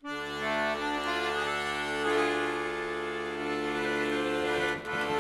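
Klezmer ensemble music opening with sustained held chords and a melody line moving over them, with a short break near the end.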